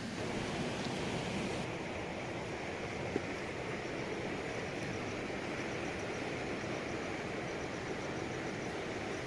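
River water rushing steadily, with a single faint click about three seconds in.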